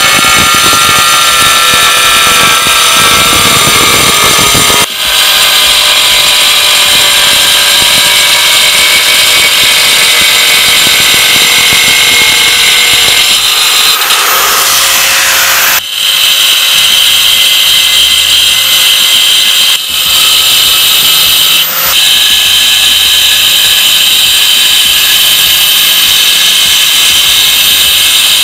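Angle grinder with a tile-cutting disc cutting through ceramic wall tile: a loud, steady high-pitched whine over the rasp of the disc in the tile. It breaks off briefly a few times and resumes.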